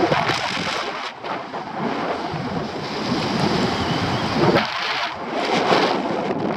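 Wind rushing over the camera microphone of a paraglider in flight, a loud rushing noise that swells and eases, with a couple of brief drops.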